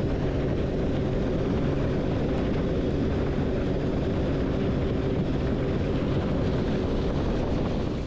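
Tiller-steered outboard motor on a Gheenoe skiff running steadily at speed. It makes a constant drone under a rush of water and wind.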